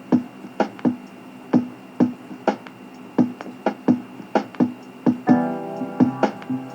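Music playing through a Soundcore Pyro Mini portable Bluetooth speaker in a sound test: a steady beat of sharp drum hits, with keyboard chords joining about five seconds in. Almost no deep bass comes through.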